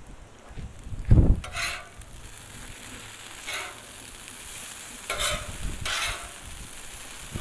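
Shredded hash browns, sausage and bacon sizzling on a gas flat-top griddle, with a metal spatula scraping across the steel as it turns and chops the hash browns, a handful of separate scrapes. A loud low thump comes about a second in.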